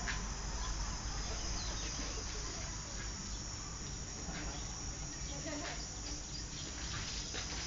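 Insects in the trees keeping up a steady, high-pitched chirring drone over faint outdoor background noise.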